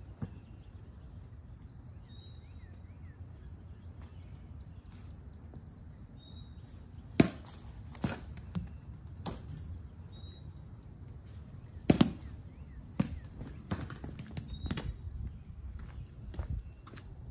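A youth bat knocking tossed balls in batting practice: a string of sharp hits, the two loudest about 7 and 12 seconds in, with lighter knocks between and after. Birds chirp in short falling calls throughout.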